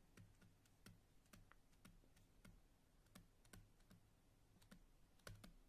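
Faint, irregular clicking, about three or four sharp clicks a second, over near-silent room tone with a faint low hum.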